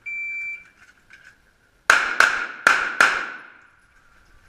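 Shot timer's start beep, one short high tone, followed about two seconds later by four pistol shots fired in two quick pairs. The shots echo in an indoor range.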